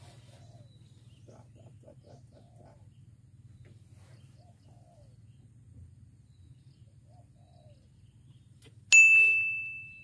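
A single bright, bell-like ding about nine seconds in, ringing out and fading over about a second, marking a bite on one of the rods. Faint bird chirps come before it.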